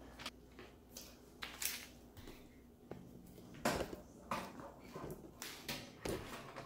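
Handling noise of a countertop convection oven being loaded: a string of separate sharp knocks and clicks as metal racks and trays are slid into it, the loudest a little past halfway.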